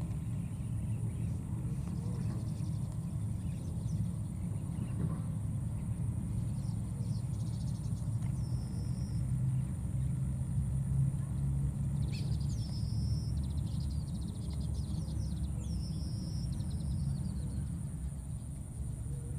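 Steady low outdoor rumble, with a few short high-pitched chirps about halfway through and again twice later on.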